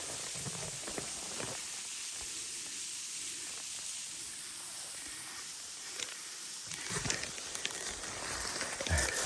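Steady outdoor hiss, with a few footsteps in the second half.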